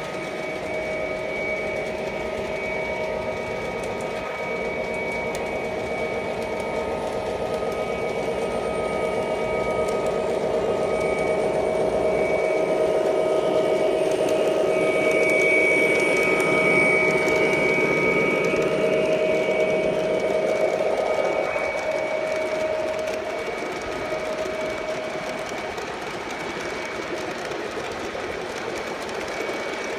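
Model diesel locomotive pulling a train of loaded coal hoppers along the track: a steady motor hum and wheel rumble with a few held whining tones. It grows louder as the train passes close around the middle, then eases off.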